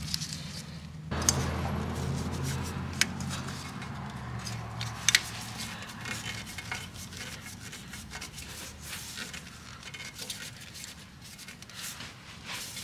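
Gloved hand turning a new motorcycle oil filter against the engine case to tighten it past gasket contact: soft rubbing and scraping, with a couple of sharp clicks. A low hum comes in about a second in and fades out by the middle.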